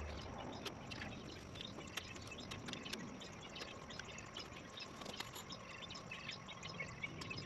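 Faint outdoor background: a light steady hiss with many short chirps and ticks scattered through it.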